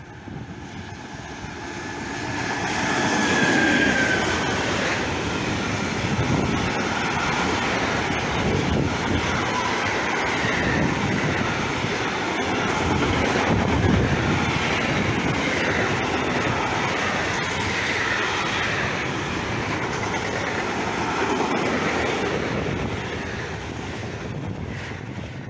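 Electric-hauled intermodal freight train passing close by. A high whine falls in pitch about three seconds in as the locomotive goes past, then a long steady rumble and rattle of container and tank-container flat wagons running over the rails, with wheel clatter.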